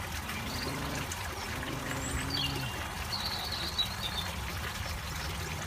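Steady trickle and splash of water falling into a garden pond, with faint bird chirps about halfway through.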